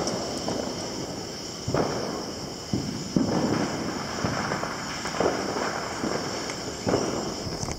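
Neighbourhood consumer fireworks going off nearby: a string of about seven bangs at uneven intervals, each trailing off in a rolling echo.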